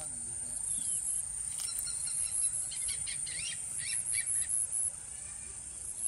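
Insects buzzing in a steady, high-pitched chorus, with a pulsing trill above it. Several short bird chirps come in about two to four seconds in.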